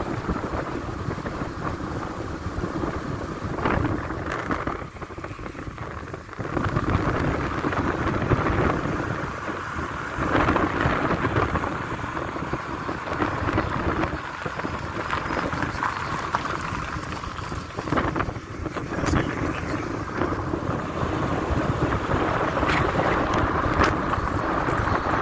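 Rumbling road and wind noise in a moving car, with wind buffeting the microphone and rising and falling unevenly.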